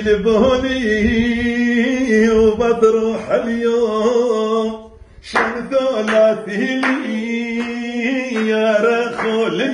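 A man singing unaccompanied, holding long, wavering notes in an ornamented melody, with a short break for breath about five seconds in.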